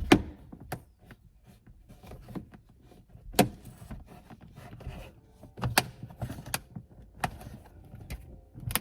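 Plastic sun-visor mount being pried at with a hand tool: irregular sharp clicks and knocks of hard plastic and metal, with faint rustling between them, as the clip is worked loose from the car's ceiling.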